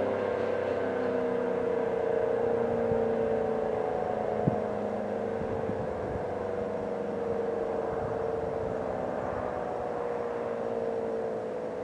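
ACA P-15 outdoor warning siren sounding several tones at once, sliding slowly and steadily lower in pitch and fading a little, as a siren does while winding down. A single sharp click about four and a half seconds in.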